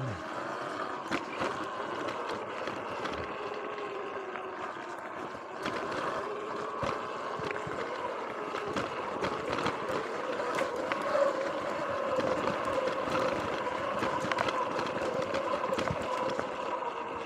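Sur-Ron X electric dirt bike riding along a dirt trail: a steady motor and drivetrain whine that rises and falls with speed, with tyre noise and scattered knocks and rattles from bumps.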